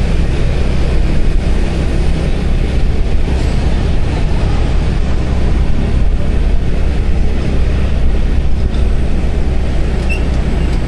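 Motor scooter riding along a street in traffic: a steady, loud rumble of engine, tyres and wind on the microphone.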